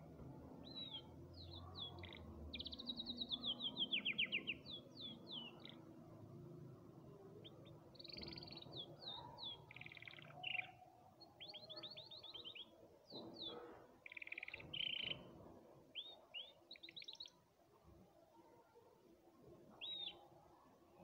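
Domestic canary singing in bursts of fast trills and quick repeated chirps, with short pauses between phrases; the loudest is a rapid trill about three to four seconds in. The song thins out near the end, with one last short phrase.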